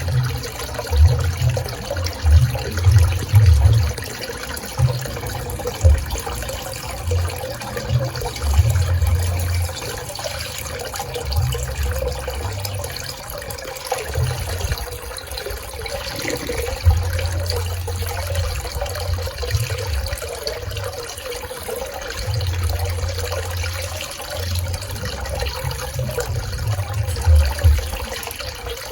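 Swimming-pool water running and splashing in a steady wash, with irregular low rumbles that come and go.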